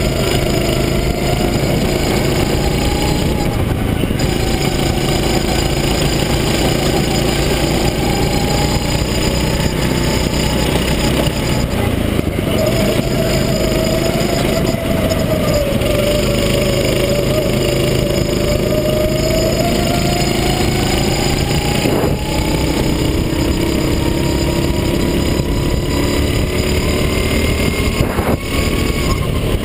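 Racing go-kart engine heard close up from the kart itself, running hard under racing load, its pitch climbing and falling as the driver accelerates and lifts through the corners, with brief drops in revs a few times.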